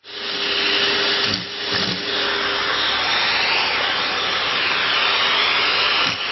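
Vacuum cleaner running steadily, with a steady hum under its rushing noise that dips briefly twice about a second and a half in.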